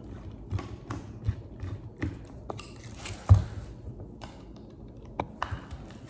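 Handling noises while a pylon tube is fixed onto a prosthetic foot's adapter: scattered small metal clicks and knocks of a hex key and the tube clamp, with a dull thump a little past three seconds in and the plastic wrapping on the foot crinkling as it is lifted.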